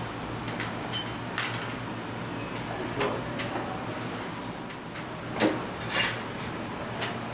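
Metal utensils clinking and knocking against a stainless-steel hot pot as a mesh strainer ladle scoops beef from the broth, over a steady low background hum. The two loudest knocks come about five and a half and six seconds in.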